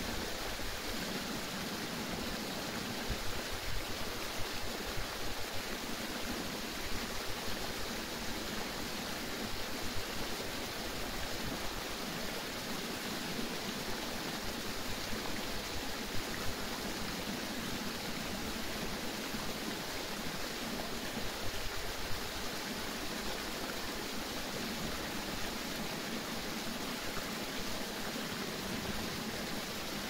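Noisy stream: a steady rush of running water, with small brief splashes now and then.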